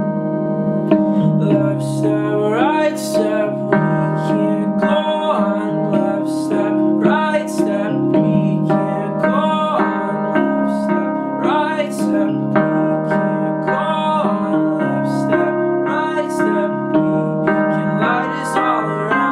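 Digital piano played in steady repeated chords, with a wordless voice sliding up into held notes several times over it.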